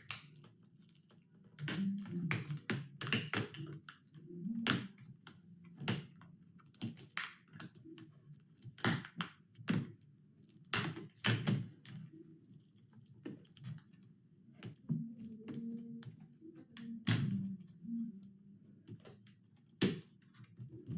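Irregular clicks and taps of hands working a laptop screen loose from its plastic lid frame, with a sharper knock every second or two.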